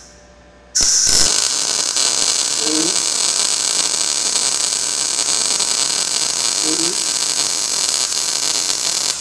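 Gas-shielded MIG welding arc from a Blue Demon BLUEARC 140MSI 110 V inverter welder running a bead. It is a steady, even, crisp crackle like frying bacon that starts suddenly about a second in and stops at the very end.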